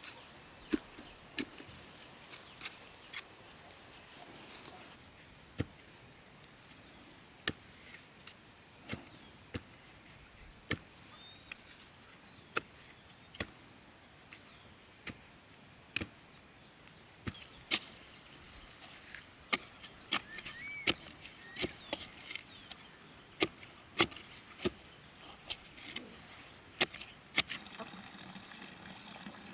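Repeated sharp chopping strikes with a blade, irregular, about one to three a second and coming faster in the second half. A short high buzzing trill sounds three times.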